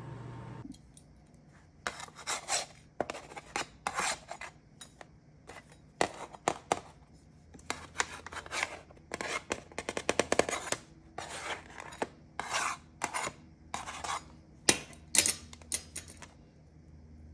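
Spatula scraping along a metal baking sheet, working under baked cookies to loosen them: a long run of short scraping strokes, with a quick flurry about ten seconds in, stopping about a second before the end.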